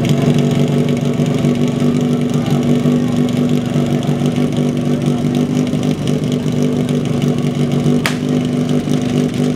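Portable fire pump's engine running steadily at idle, a constant even hum with a low pitch. A single sharp crack cuts through it about eight seconds in.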